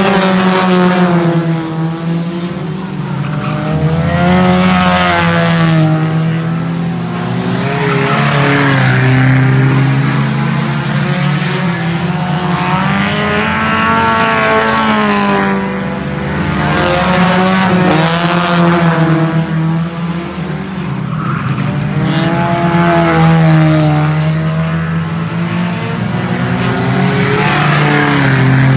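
Several race car engines running hard around a dirt oval track. Their pitch rises and falls as the cars accelerate and back off, and the sound swells every few seconds as the pack goes by.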